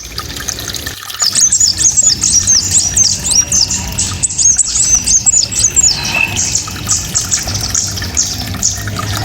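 A small songbird singing fast, sharp, high 'tembakan' bursts: a dense run of rapid chirping notes starting about a second in, easing into softer scattered notes after about six seconds.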